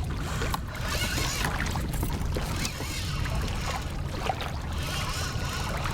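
Water lapping and splashing against a fishing kayak's hull under a steady low rumble, with scattered small clicks and knocks.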